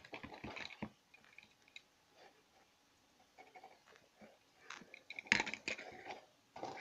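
Handling noise from a plastic toy airbrush tattoo kit: scattered clicks, knocks and rustles as its plastic parts are moved about. The sounds are quiet through the middle, with a louder cluster about five seconds in.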